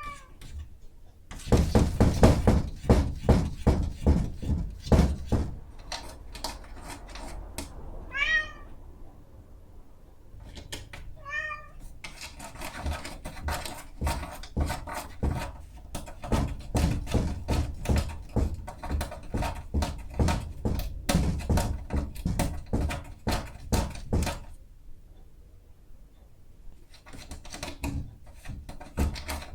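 A domestic cat scratching at a door, its claws raking the door in long bouts of rapid strokes, and meowing twice in the pause between bouts. It is a cat demanding its breakfast.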